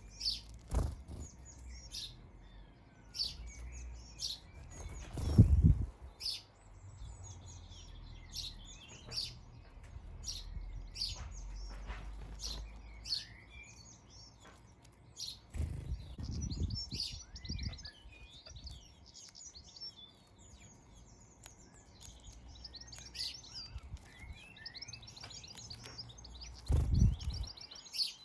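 Garden birds, house sparrows among them, chirping over and over with quick twittering trills. A few low thumps break in, the loudest about five seconds in and another near the end.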